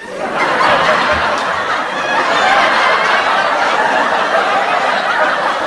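A group of people laughing together, many voices overlapping in a steady, continuous wash of laughter: a stock laughter sound effect.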